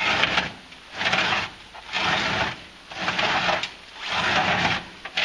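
A tarp being pulled in repeated hand-over-hand tugs, about once a second. Each tug is a short scraping rush as the tarp and the large rock resting on it slide across the flatbed trailer toward its edge.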